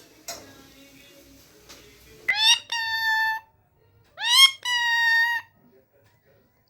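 Indian ringneck parrot giving two loud, drawn-out calls about a second apart, each sweeping up in pitch and then held steady for about a second.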